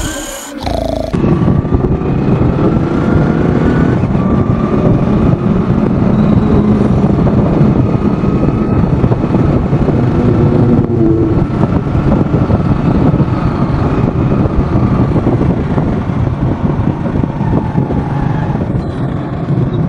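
Steady rumbling engine and road noise heard from a motor vehicle moving along a street, starting about a second in.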